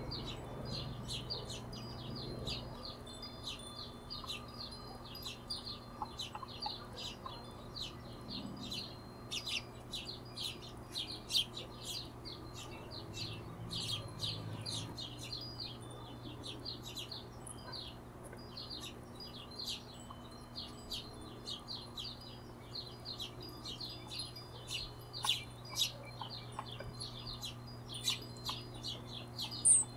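Hummingbirds giving rapid, high-pitched chips and chirps, almost without pause, over a steady low hum. One louder, sharper chirp comes near the end.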